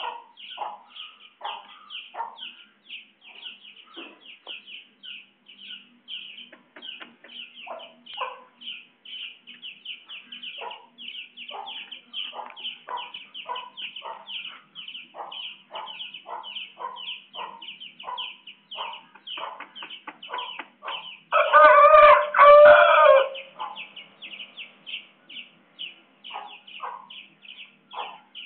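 A rooster crows once, loudly, for about two seconds about three quarters of the way through. Around it runs a steady, quick high chirping, about three or four chirps a second, with scattered lower clucks.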